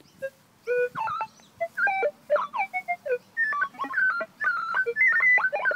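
Minelab E-Trac metal detector's audio: a rapid jumble of short beeps and chirps at many different pitches as the coil sweeps over ground littered with trash. These are junk signals crowding round a good target.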